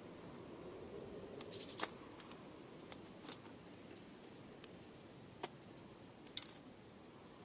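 Dark-eyed junco pecking at seed in a metal feeder tray: irregular sharp clicks and taps of bill and seed on the metal, the loudest about six seconds in.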